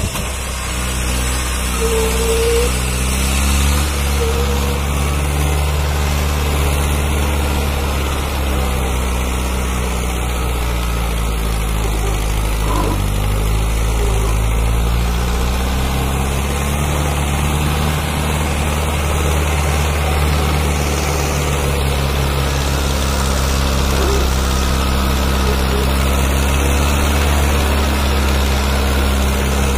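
Mahindra Arjun 555 DI tractor's four-cylinder diesel engine running hard under heavy load, pulling a fully loaded sand trolley and straining enough to lift its front wheels. The engine note is steady, shifting slightly in pitch a few times.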